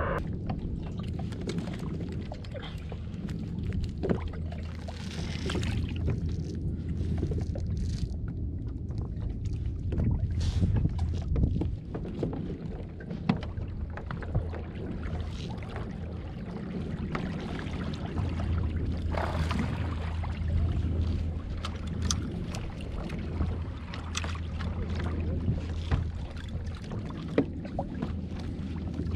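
A small Suzuki outboard motor runs steadily with a low hum, mixed with water washing against the kayak's hull and wind on the microphone. Occasional sharp knocks sound against the hull and gear.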